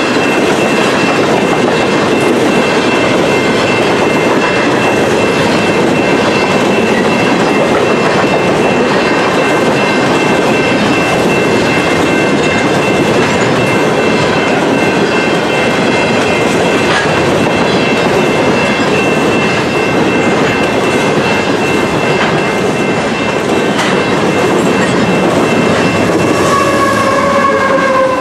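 Empty covered grain hopper cars rolling past, a continuous rumble and rattle of wheels on rail with scattered clicks and a steady high-pitched ring on top. Near the end a pitched tone slides slowly downward.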